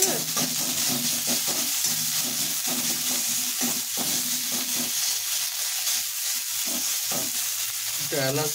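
Ginger frying and sizzling in hot oil in an aluminium karai, with a metal spatula stirring and scraping against the pan over and over.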